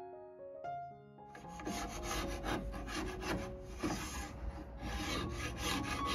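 Hand-held abrasive tool rubbed back and forth on the buffet's oak leg rail, in quick scraping strokes about three a second, starting about a second in, over soft piano music.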